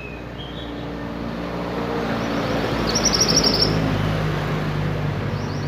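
A motor vehicle passing by, its engine and road noise swelling to a peak in the middle and easing off. A bird gives a short rapid trill of high notes about three seconds in.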